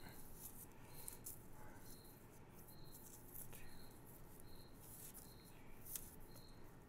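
Near silence: faint rustles and ticks of fingers handling and twisting monofilament fishing line, over a faint high chirp that repeats about once a second.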